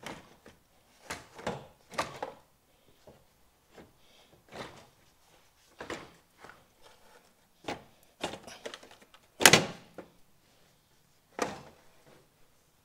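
Irregular knocks and clunks as the car's radiator and condenser, unbolted as one unit, are worked loose and lifted out, with one loud thump about two-thirds of the way through and another near the end.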